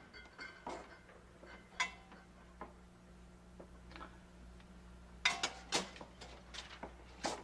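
Kitchen handling sounds as a refrigerator is opened and a plate is taken out: a scatter of light clicks and clinks, with a louder pair of knocks about five seconds in and another knock just before the end.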